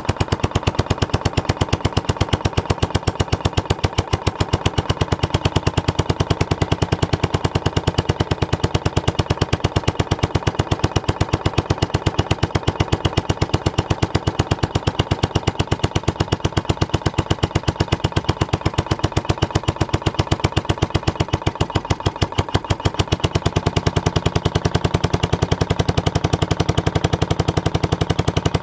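Cast iron series Briggs & Stratton single-cylinder engine on a Simplicity VC walk-behind tractor running steadily, with a rapid, even train of sharp exhaust reports. It is firing a little hard, which the owner puts down to low compression and points timing that may be off a hair.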